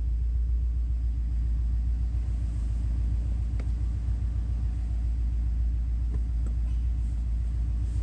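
2005 Subaru WRX engine idling steadily with a low rumble, in gear with the clutch pedal held down, where the owner hears an odd noise from the clutch or transmission that he believes is the throw-out bearing.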